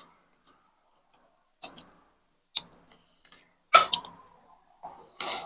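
Forks and spoons clicking and tapping against a plastic tray and plate while noodles are eaten: a few separate sharp clicks, with the loudest clatter a little under four seconds in.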